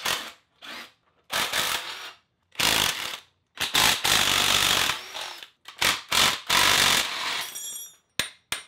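Cordless impact wrench run in about five short bursts, unfastening the lower control arm bolts, followed by a few light clicks near the end.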